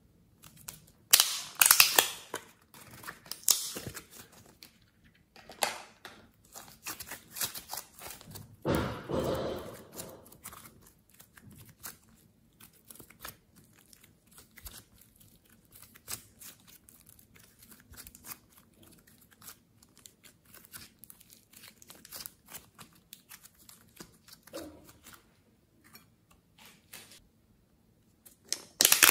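Small plastic slime tubs handled and opened, giving sharp clicks and crinkles, with the loudest clicks early on and near the end. In between, soft glossy slime is stretched and squeezed, making many small sticky clicks and crackles, with a longer, duller squish about nine seconds in.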